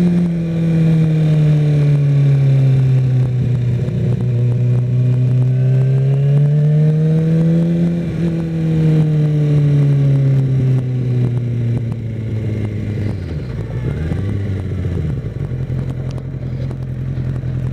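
Kawasaki Ninja ZX-6R inline-four engine running while the bike is ridden: its note eases down, climbs again to about halfway through, then falls and settles to a steady lower pitch for the last few seconds.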